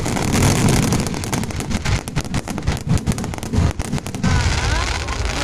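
A pyrotechnic castillo's fireworks going off: a dense, rapid crackle of small bangs over a low rumble, thinning out about four seconds in.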